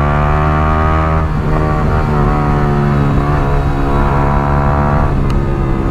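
Yamaha R15 V3's single-cylinder engine through a chopped Akrapovic exhaust, running at a steady cruise under light throttle. Its note changes about a second in, then holds and climbs slightly.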